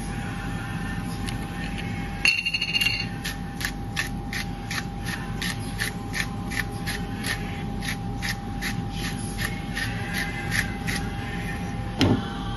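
Manual salt grinder being twisted over a dish, grinding coarse pink salt with an even ratcheting click about three times a second after a brief squeak as it starts. A single knock comes near the end.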